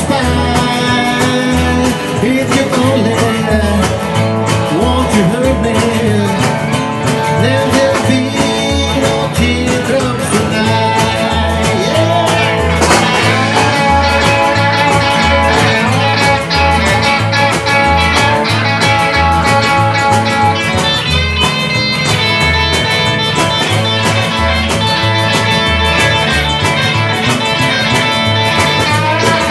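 Country band playing an instrumental break: upright bass and drums keeping a steady beat under acoustic guitar rhythm, with harmonica and electric guitar.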